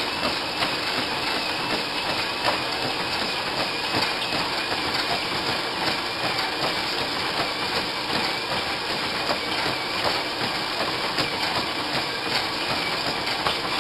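Treadmill running steadily: an even whirring rush from the motor and belt, with a faint high wavering whine and light footfalls on the belt.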